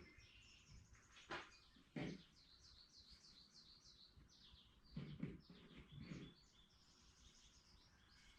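Faint birdsong: many quick high chirps from small birds throughout. A few soft knocks, two in the first couple of seconds and a short cluster around the middle, are the loudest sounds.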